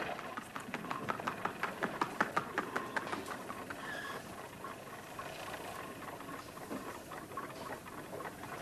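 Small clicks and rattles of a longcase clock's works being fiddled with by hand, a quick run of clicks in the first three seconds or so, then fainter scattered clicking.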